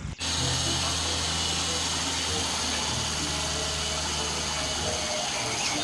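Steady engine-like machine noise with a low hum that runs evenly and stops about five seconds in.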